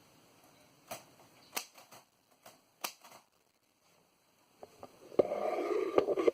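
Royal Quiet Deluxe portable manual typewriter being worked: a few separate sharp clicks of keys or typebars over the first three seconds, then about a second of louder continuous mechanical rattle with clicks in it near the end, which cuts off suddenly.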